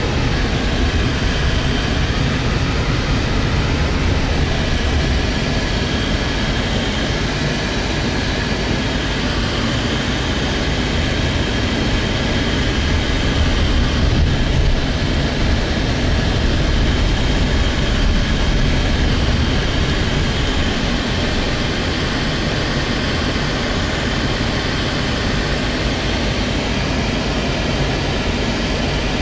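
Steady road and engine noise inside a moving car: a constant low rumble with a faint high whine over it.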